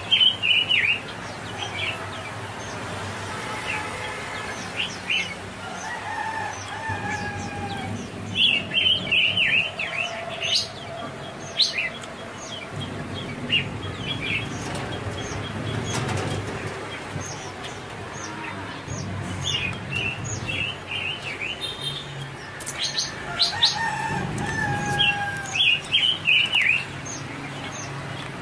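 Birds chirping: several bursts of quick, high chirps, with a few longer, lower drawn-out calls in between.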